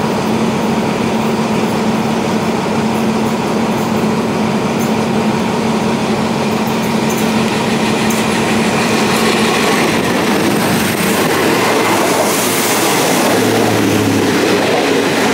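State Railway of Thailand diesel railcar approaching on the adjacent track and running past close alongside, with its engine and wheels on the rails, over a steady engine hum close by. The rushing noise of the passing train builds, and it is loudest in the last few seconds.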